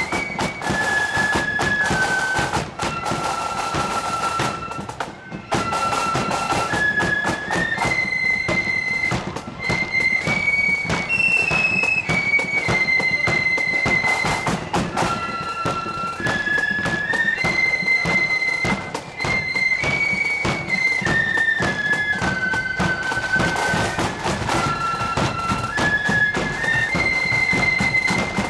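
Marching flute band playing a tune: high flutes carry a stepping melody over a steady beat of snare and bass drums.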